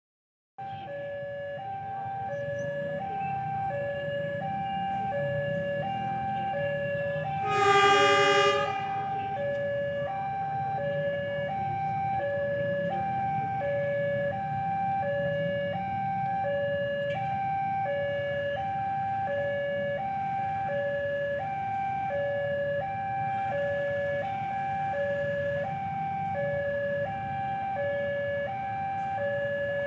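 Railway level-crossing warning alarm sounding steadily, alternating between a high and a low note about every 0.7 s. About 8 seconds in, a short loud horn blast sounds over it, with a low rumble underneath throughout.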